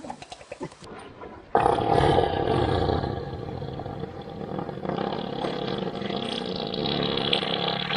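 An elephant passing gas: one long, loud, rasping fart that starts suddenly about a second and a half in and is still going at the end.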